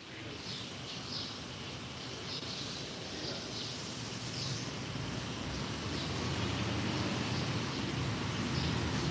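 Outdoor background noise: a low, steady rumble that slowly grows louder, with short high chirps about once a second.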